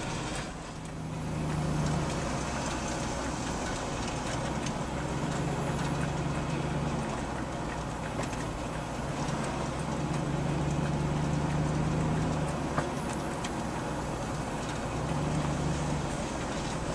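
Steady vehicle noise of engine and road rumble, with a low drone that swells four times. A single sharp click comes about three-quarters of the way through.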